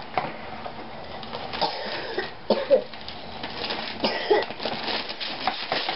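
Wrapping paper being torn and crinkled off a present in short, irregular rips, with a couple of brief vocal sounds in the middle.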